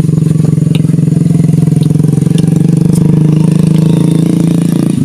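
A small engine idling steadily and loudly close by, dropping off abruptly at the very end.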